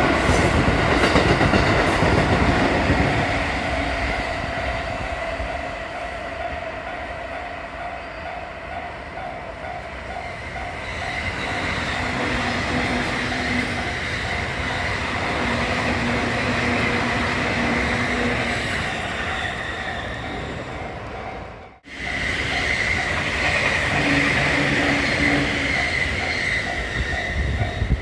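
Trains passing over a Japanese railway level crossing, wheels running and squealing on the rails, with the crossing's warning bell ringing in a steady repeating beat. The sound breaks off abruptly about three-quarters of the way through and picks up again at once.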